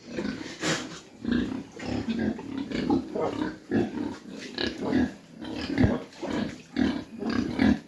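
Pigs grunting: a steady run of short, low grunts, about two a second.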